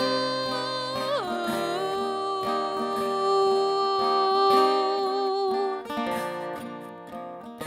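Live folk song with acoustic guitar. A long held melody note slides down about a second in and holds until near the end, then the strummed acoustic guitar plays on alone, softer.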